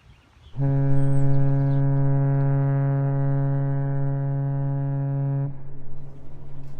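One long, steady horn blast held for about five seconds at a single low pitch with many overtones, then cut off, leaving a faint low hum at the same pitch.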